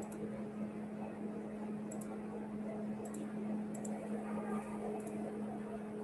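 Steady low hum over faint room noise, with a few faint, short clicks.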